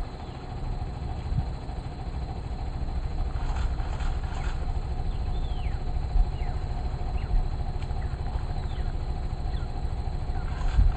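Safari vehicle's engine idling steadily, with birds giving several short, falling whistles over it.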